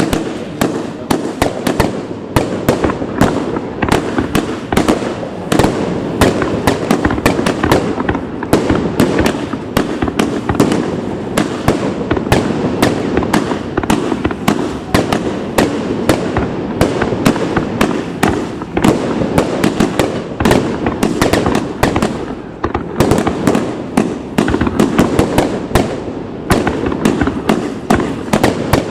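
Consumer fireworks display going off in a dense, continuous barrage of loud bangs, several reports a second.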